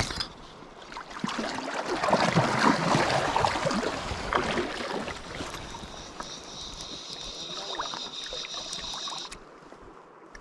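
Water splashing and gurgling around a small pontoon boat, loudest in the first half, then a steady high-pitched buzz for about three seconds that cuts off near the end.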